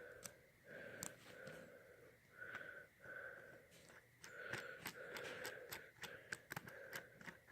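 Faint wheezy breathing that pulses about twice a second, with scattered light clicks, mostly in the second half.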